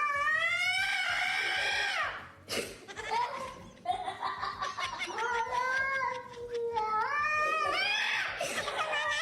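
Cat yowling in long, drawn-out wavering calls, three in a row, with a sharp click between the first and second.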